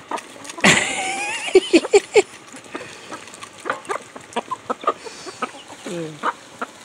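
Hens clucking and pecking dried corn kernels from an open hand: quick sharp clicks of beaks on the kernels among short clucks, with a louder call about a second in.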